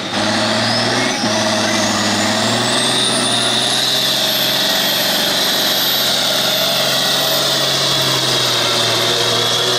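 Farmall 560 pro field pulling tractor's diesel engine running hard under load while hauling a weight-transfer sled. A high whine rises over the first few seconds and then holds steady.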